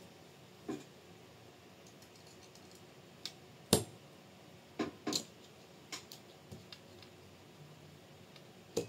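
Scattered light clicks and taps of small kit parts being handled and fitted on a model car chassis, about ten in all and irregularly spaced, the loudest a sharp click a little under four seconds in.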